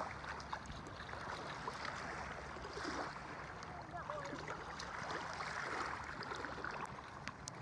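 Shallow water sloshing and splashing around bare feet wading through it, with faint voices in the background.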